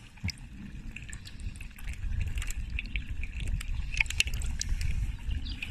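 Water sloshing and splashing in a plastic bucket as a hand moves through it to catch a small carp, with many small irregular splashes over a low rumble.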